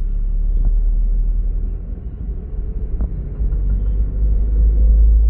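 Steady low road and engine rumble inside a moving car's cabin, with two faint clicks.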